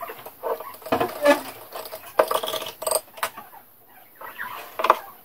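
Irregular clinks and taps of a utensil against a glass jar of water, some of them ringing briefly, as baking soda is stirred in to make the electrolyte.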